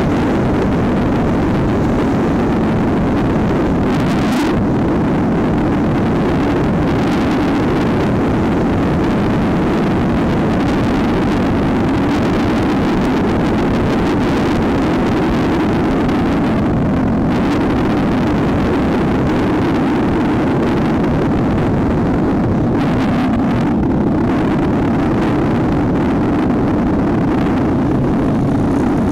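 Trail motorcycle's engine running steadily at cruising speed, heard from the rider's helmet camera, with rushing air noise over it.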